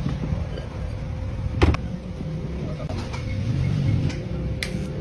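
Steady low mechanical hum with a thin constant tone, and a sharp knock under two seconds in.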